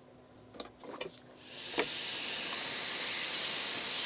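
Hot-air heat gun starting up about a second and a half in, then blowing a steady hiss with a thin high whine as it shrinks heat-shrink tubing over soldered wires. A few small handling clicks come before it.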